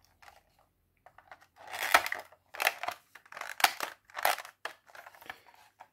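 Hard plastic toy parts rattling and clacking in several short bursts as the small cluster-bomb pieces of a G.I. Joe Rolling Thunder missile are taken out and handled against the hollow missile body.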